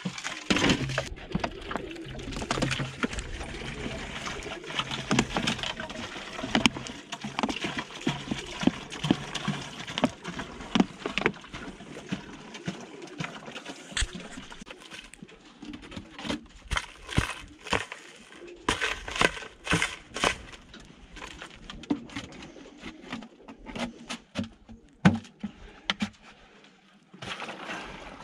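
Pigeons cooing and stirring in a loft, with scattered knocks, scuffs and clatter.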